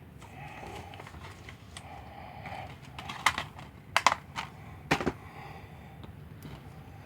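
Plastic Blu-ray cases being handled: faint rustling with a handful of sharp plastic clicks and snaps about three to five seconds in, as a case is opened and discs are worked off their hubs.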